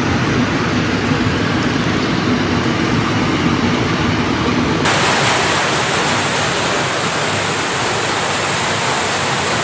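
Muddy floodwater rushing down a hillside in a torrent during torrential rain, a flash flood from the record downpour. About five seconds in, the sound turns brighter and hissier, as heavy rain on the glass and rushing water take over.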